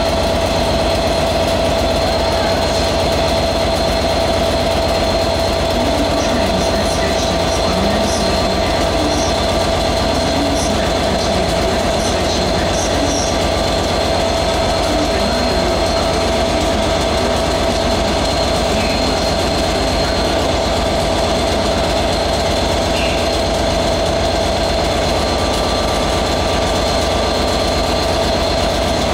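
Class 67 diesel-electric locomotive with a two-stroke EMD 710 V12 engine, standing and idling: a steady low rumble with a constant whine that does not change.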